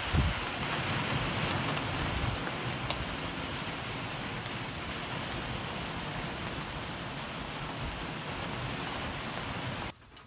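Rain falling steadily in a short summer shower, an even hiss; it stops abruptly near the end.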